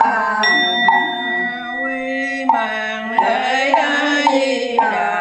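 Buddhist nuns chanting a funeral sutra in long, sliding sung notes, with a high steady ringing tone over the first few seconds.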